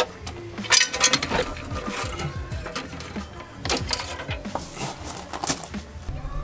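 Hard clicks and clunks as the upper intake manifold of a Ford AU Falcon engine is worked loose and lifted off, a handful of separate knocks spread across a few seconds.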